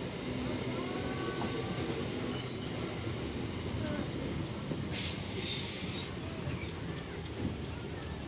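Passenger train running, heard from inside the coach: a steady rumble from the wheels on the track. About two seconds in comes a loud, high-pitched metallic squeal lasting a second and a half, and shorter squeals follow later.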